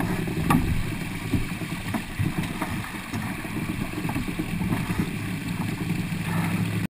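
Wind and water rushing past a 707 keelboat under sail, heard through a boat-mounted camera, with a few knocks and rattles as the crew hauls the spinnaker down into the cockpit. The sound cuts off suddenly near the end.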